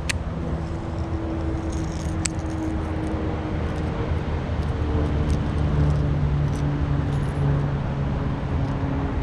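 Steady low motor drone, like traffic or an engine running nearby, whose faint held pitch drops a little about halfway through. A few light, sharp clicks and a jangling rattle sound over it.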